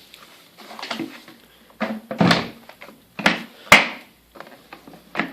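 A few separate knocks and rustling scrapes from things being handled, with a sharp click a little under four seconds in; the vacuum is not running.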